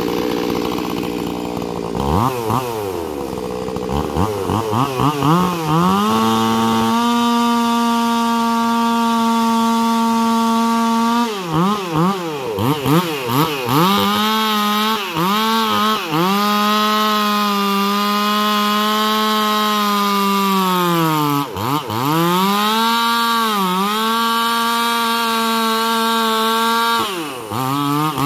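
Stihl MS361 two-stroke chainsaw idling for a moment, then revved in short blips and held at full throttle while cutting into a red maple trunk, its pitch sagging slowly under load. The revs drop sharply and pick back up a few times.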